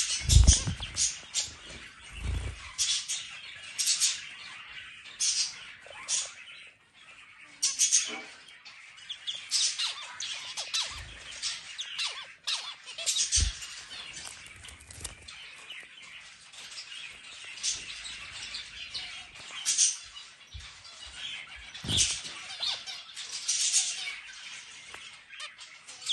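Zebra finch calling and singing: a busy run of short, buzzy, high chirps repeated throughout, with a few brief low thumps among them.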